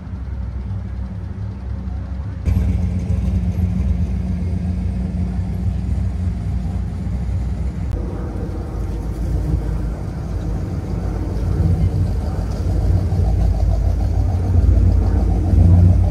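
A vehicle engine running with a steady low rumble. The sound changes abruptly at about 2.5 seconds and grows louder toward the end.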